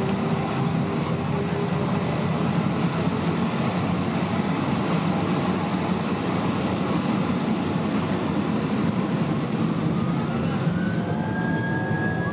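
Airbus A320-232's IAE V2500 engines running at high thrust, heard from inside the cabin as a loud, steady roar of engine and airflow. Several tones rise in pitch about ten seconds in.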